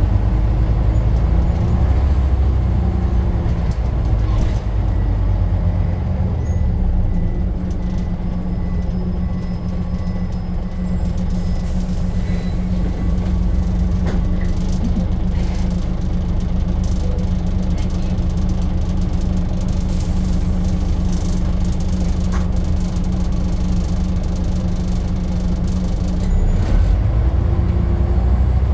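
Scania N94 double-decker bus's diesel engine heard from the upper deck while under way: a steady drone whose pitch climbs as the bus pulls away at the start and again near the end. Two short air hisses from the bus's air system, about 12 and 20 seconds in.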